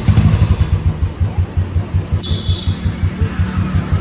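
A Royal Enfield 350's single-cylinder engine catches and settles into an even idle of about seven thumps a second, with hydrogen and oxygen from a decarbonizing machine being fed into its air intake. A short high beep comes about two seconds in.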